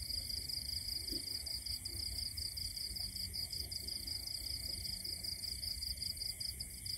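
Chorus of night insects: a steady, high-pitched trill with a fast pulse, over a low rumble.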